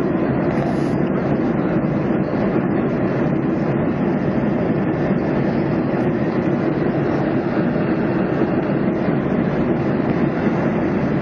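Steady cabin noise of a jet airliner in flight: an even, unchanging rush of engines and airflow.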